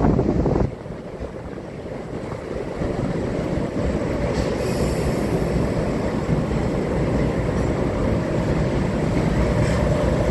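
JNR DE10 diesel-hydraulic locomotive's V12 diesel engine running as it rolls slowly into the platform, its low rumble growing louder over the first few seconds as it draws alongside and then holding steady. A louder noise cuts off suddenly under a second in.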